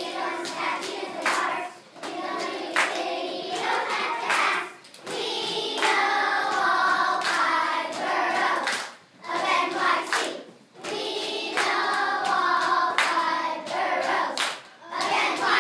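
Children's choir singing a song in phrases with short breaks between them, with sharp handclaps here and there.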